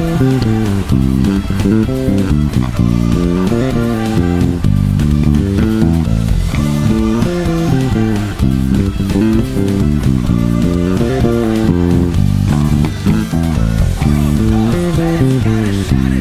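Electric bass guitar playing a busy line of quickly changing notes over a full band track with a steady beat.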